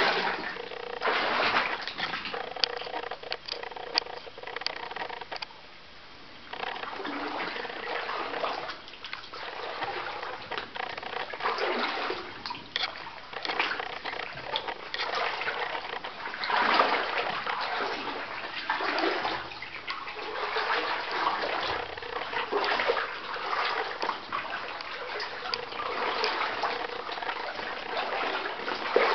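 Water splashing and sloshing as someone wades through a flooded mine gallery, in uneven surges every second or two.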